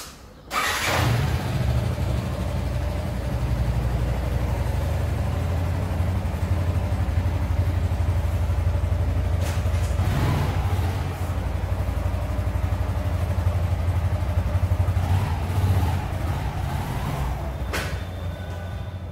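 Yamaha R15 motorcycle's single-cylinder engine starting up about half a second in, then running steadily with a few brief rises in revs as it pulls away, growing a little fainter near the end.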